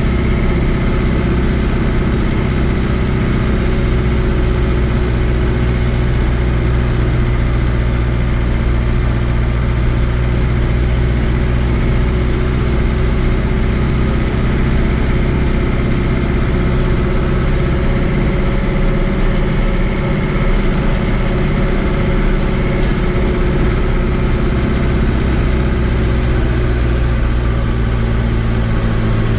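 Fiat 80-90 DT tractor's diesel engine running steadily under way, heard from inside the cab as an even, pitched drone.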